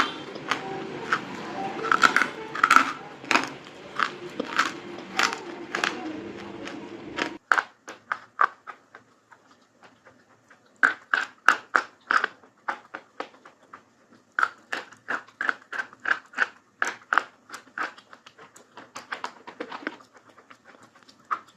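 Crunchy bites and chewing of brittle white food: a long run of sharp, crisp crunches, about two a second. A steady background noise under the crunches cuts off abruptly about seven seconds in.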